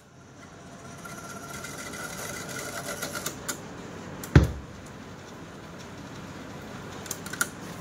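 Cassette deck transport of an Ahuja 4040-S stereo amplifier whirring steadily as the tape winds at speed, the motor sound building over the first second. A loud mechanical click a little past halfway and a few lighter clicks near the end, from the deck's keys and mechanism.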